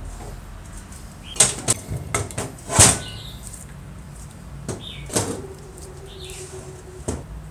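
Metal parts of an old electric drill knocking and clinking as the armature is pulled out of the motor housing and the parts are handled, a string of irregular knocks with the loudest a little under three seconds in.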